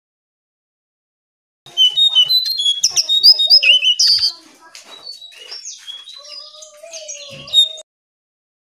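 A jongkangan (cing coang) songbird singing a fast, jumbled run of high chirps and warbles. The song starts about two seconds in and is loudest for the first two and a half seconds, then goes on as softer chirps over a low wavering tone and cuts off suddenly near the end.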